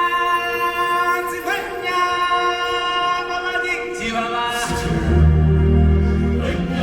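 Live stage-show music: a voice holds long sung notes over the backing, and a deep low bass swell comes in about five seconds in.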